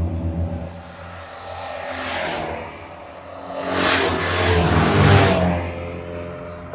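A pack of Citroën 2CV race cars passing at speed, their small air-cooled flat-twin engines running hard. One swell comes about two seconds in, and the main group goes by loudest around four to five seconds in, then fades.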